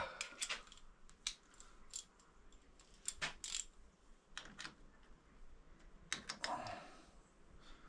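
Light, scattered metallic clicks and clinks of small tools and parts being handled while a motorcycle clutch lever and its cable are fitted and adjusted on the handlebar.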